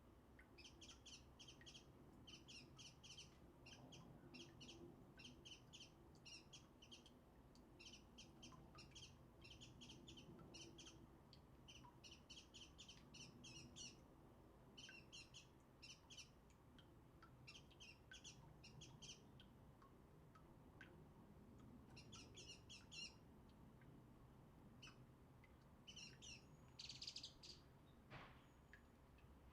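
Faint, rapid high-pitched chirping and twittering of small songbirds, in short quick bursts one after another, with a brief lull about two-thirds through and a sharper single call near the end.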